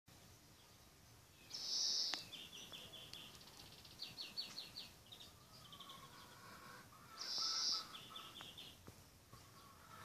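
Cockatiel calling: a loud high call followed by a quick run of short chirps, heard twice, about one and a half seconds in and again about seven seconds in, with more chirping between.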